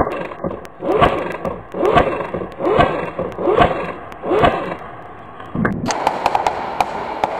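Six slow, heavy footsteps on hollow, flexing floor panels, about one a second, each a thud with a wobbling metallic ring. About six seconds in they give way to a steady rustling noise with scattered sharp clicks.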